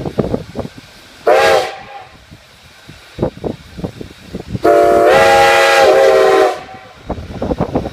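Steam locomotive whistle sounding a short blast about a second in, then a longer blast of nearly two seconds in the middle, several tones together. Irregular clanking of the train is heard between the blasts.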